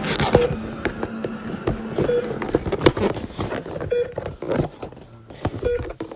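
Heart-monitor beep, four short electronic beeps about two seconds apart, mixed with clicks, knocks and rustling from the phone being handled against paper and cardboard.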